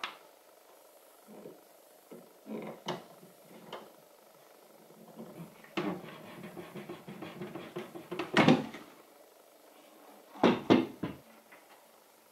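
Wooden knocks and clatter as a chestnut cabinet door on leaf hinges is handled and swung, with a run of quick light clicks before a loud knock about two-thirds through and two quick knocks near the end.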